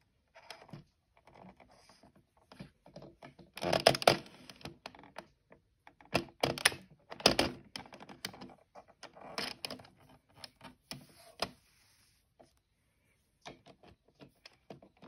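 Irregular clicking and rustling of hands working a plastic circular knitting machine: a needle catching on the plastic hooks as stitches are lifted off, and yarn being pulled through. The loudest clatter comes about four seconds in, with a short quiet spell near the end.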